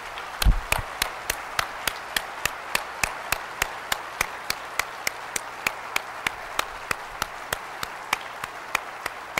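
Audience applauding, with one person's louder claps close to the microphone at an even pace of about three a second. There is a low thump about half a second in.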